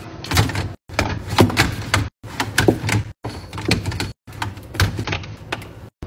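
Plastic drink bottles knocking and clacking as they are pushed into a clear spring-loaded drink organizer in a fridge door: a string of sharp clicks and thuds, chopped by abrupt edits into short bursts.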